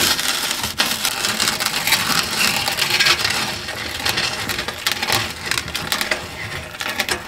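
Cordless reciprocating saw cutting along the underside of rotted subfloor and through the rusty staples that hold it, with a continuous rattling, crunching noise of wood and metal.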